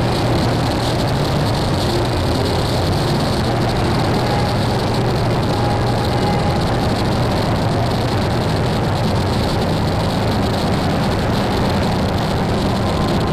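Dark ambient power-electronics noise music: a dense, unchanging wall of harsh noise over a deep droning rumble, with a few faint held tones drifting above it.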